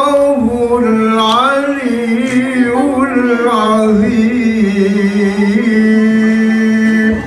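A man's solo voice chanting in a melismatic style, with the pitch wavering and ornamented, ending on a long held note that stops shortly before the end.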